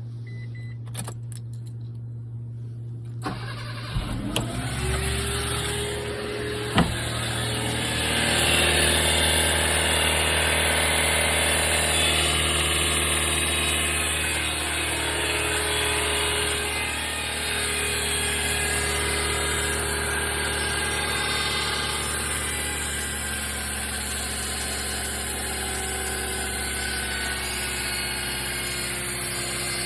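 Mitsubishi Pajero Mini H58A's small four-cylinder engine cranked and starting about three to four seconds in, then running at idle with a steady whine through it. This is the abnormal noise after start-up that the owner suspects comes from the power steering pump or the water pump.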